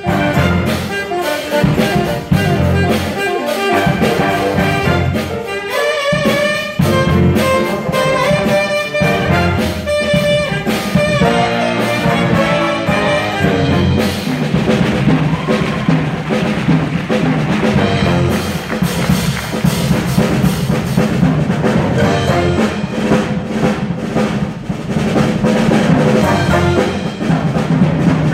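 School jazz big band playing a brass-heavy jazz tune, with saxophones, trumpets and trombones together. A passage of many short, distinct notes gives way about halfway to a fuller, more sustained ensemble sound.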